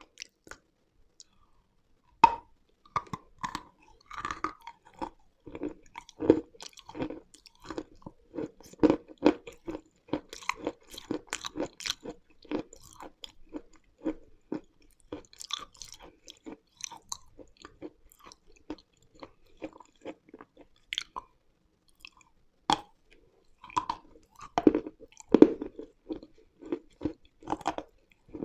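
A person biting and chewing dry, crunchy pieces of edible chalk-like mineral. The crunches are sharp and irregular. They start about two seconds in, thin out for a few seconds past the middle, then pick up again.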